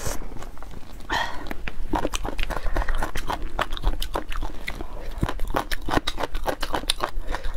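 Close-miked eating of a spicy braised platter of cow skin and chicken feet: a steady run of quick wet chewing clicks and small crunches.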